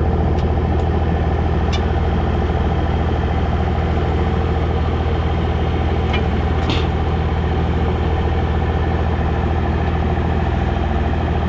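Hydraulic excavator's diesel engine running steadily at a constant speed, with a couple of brief faint clicks.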